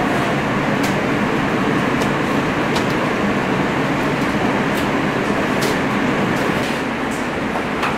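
Steady noise of commercial kitchen ventilation, the exhaust hoods and air handling running, with a few scattered light clicks.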